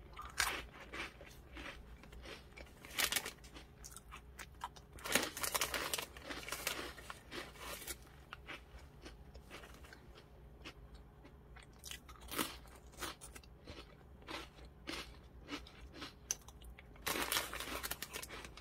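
Crisp sesame wheat sticks bitten and chewed close to the microphone, a run of crunches. A foil snack packet rustles near the end as more sticks are pulled out.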